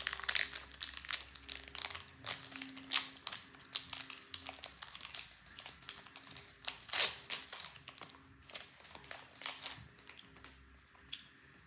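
A Pokémon booster pack's foil wrapper crinkling as it is torn open and handled, in quick, irregular crackles.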